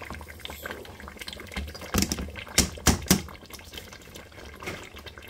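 Tomato-pepper stew bubbling and crackling in a steel pot with washed rice just added. A few sharp knocks on the pot come about two to three seconds in.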